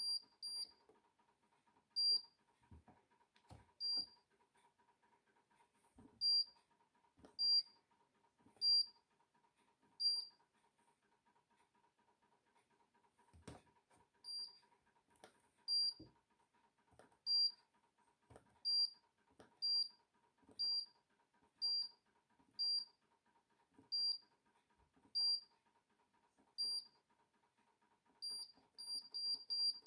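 Short, high electronic beeps from a Hoover condenser tumble dryer's control panel, repeating irregularly about once a second, some with a faint click or knock under them, over a faint steady hum.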